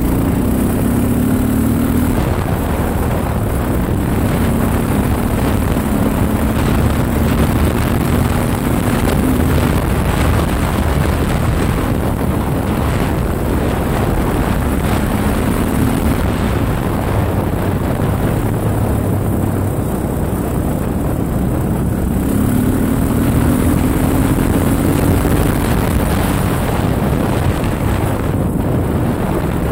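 Honda XR650L single-cylinder four-stroke engine running under way, mixed with the rush of wind on the handlebar-mounted mic. The engine note rises and falls with the throttle, climbing noticeably in the last third.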